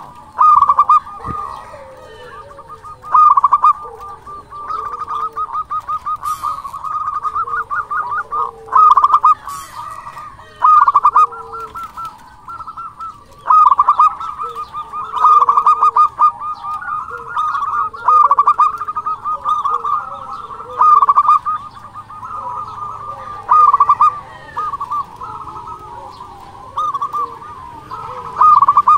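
Zebra dove (perkutut) singing: repeated phrases of rapid, pulsed cooing notes, with the loudest phrases coming every two to three seconds and softer lower coos between them.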